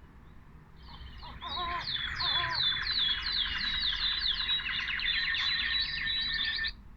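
Bird song: a fast run of repeated high notes, each sliding downward, over a buzzy trill, with a few lower notes near the start. It starts about a second in and cuts off sharply near the end.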